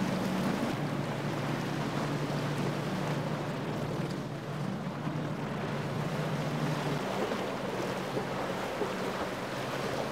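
Choppy sea water washing and wind on the microphone, with the low steady hum of a boat engine running underneath that eases off about seven seconds in.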